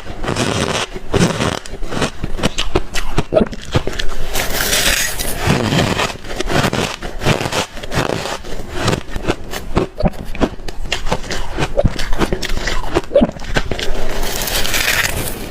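Close-up chewing of spoonfuls of hard, squeaky crushed freezer ice: a dense run of crisp crunches and crackles. Two longer hissing scrapes come about four seconds in and again near the end.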